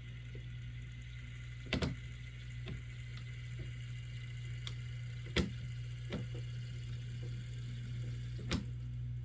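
HO-scale Proto 2000 GP9 model diesel locomotive running with a steady low hum, broken by sharp cracking clicks at uneven intervals, about five in all. The cracking is, in the owner's words, very indicative of axle gears that need replacing.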